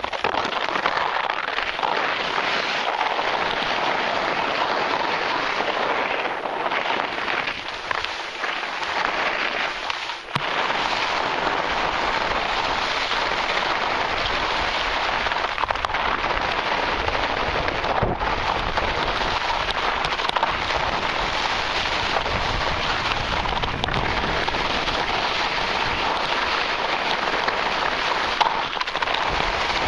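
Continuous crackling, scraping hiss of edges sliding fast over summer snow on a downhill run; it eases briefly about ten seconds in.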